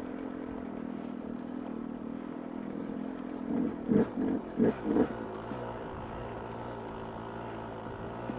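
Two-stroke dirt bike engine running steadily under way on a rough trail, with a few short louder surges of throttle about four to five seconds in.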